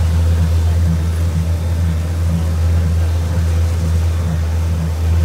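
Amusement-park ride train running, heard from inside a carriage: a loud, steady low drone.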